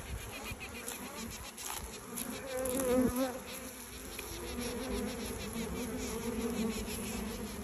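Honeybees buzzing on a hand, with the queen piping, a sound she makes while being balled and attacked by worker bees. A steady hum with a pitched tone that swells about two and a half to three seconds in.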